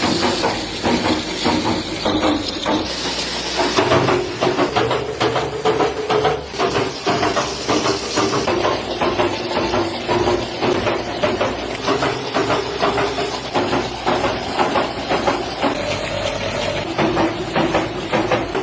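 Bottle-cap marking machine running, with a rapid, continuous clatter of clicks over a steady mechanical hum. A hiss sounds through the first four seconds or so and then drops away.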